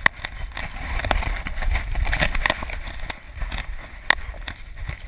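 Rumbling, knocking noise from a GoPro camera worn by a dog running through snow: irregular sharp knocks and scuffs, several a second, over a low wind-like rumble.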